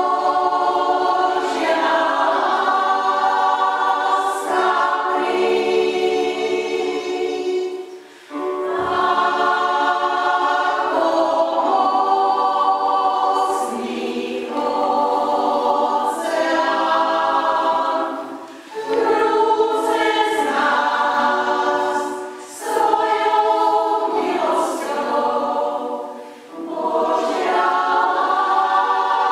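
Choir of women's voices with a few men's voices singing in a church, in long phrases with short breaths between them.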